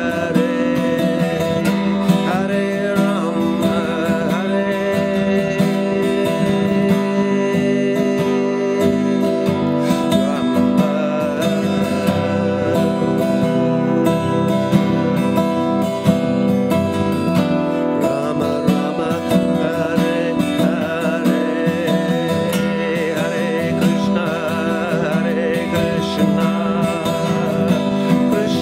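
Steel-string acoustic guitar strummed steadily through a chord progression.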